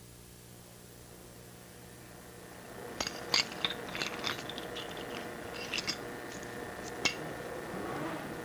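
Spring-loaded mousetraps handled and clicking: after a few seconds of faint hum, a scatter of sharp clicks and light scrapes starts about three seconds in, with one lone sharp snap about seven seconds in.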